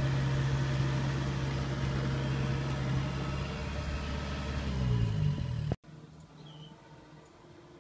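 Farm machine engines, a combine harvester and a tractor, running steadily with a low hum; about five seconds in the pitch rises briefly before the sound cuts off abruptly. After that only a quiet outdoor background remains, with a faint short chirp.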